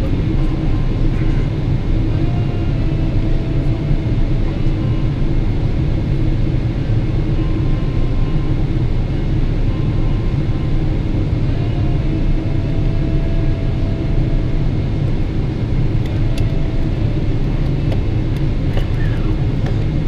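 Steady low rumble inside the cabin of a Boeing 777-300ER taxiing, its GE90 engines at idle, with a faint whine that comes and goes.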